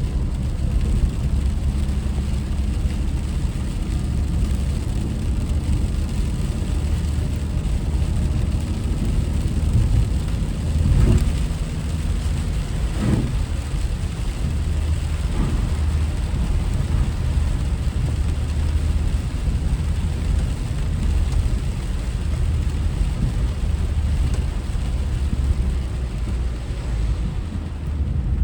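A car driving, its engine and road noise making a steady low rumble, with three brief louder sounds about 11, 13 and 15 seconds in.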